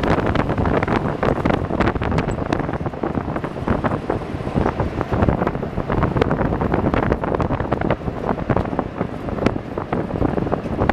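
WWII DUKW amphibious truck driving on a road, its original gasoline engine and road noise running under heavy wind buffeting on the microphone from riding in the open-sided vehicle.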